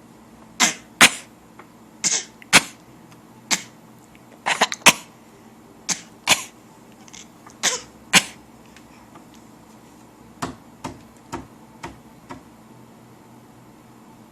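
A baby and an adult trading short, sharp coughs back and forth, often in quick pairs. The louder coughs come over the first eight seconds or so, and a run of five softer ones follows near the end.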